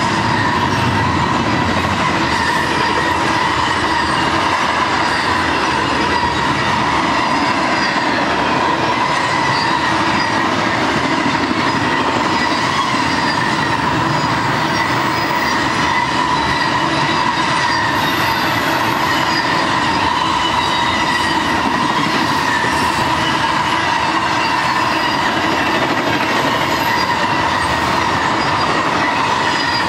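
Intermodal freight cars of a BNSF double-stack and trailer train rolling past at steady speed: the constant rumble of steel wheels on rail, with a steady high-pitched squeal held over it.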